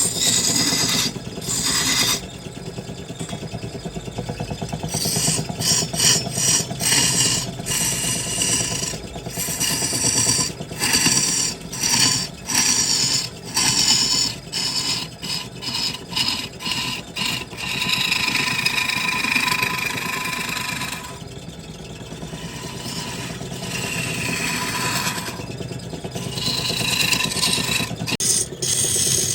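Wood lathe running with a steady hum while a turning tool scrapes and cuts the spinning wood, in a run of short, stop-start strokes with a longer steady cut in the middle.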